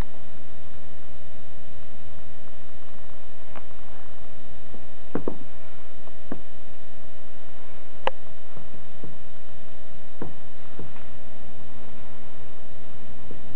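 A steady electrical hum, with a few scattered clicks and knocks from a handheld camera being moved about; the sharpest click comes about eight seconds in.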